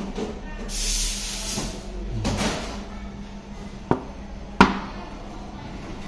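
Small parts of a coffee machine's steam solenoid valve being handled and taken apart on a rubber work mat: a soft hiss early on, a brief rustle, then two sharp clicks of metal parts, the second louder, over a steady low hum.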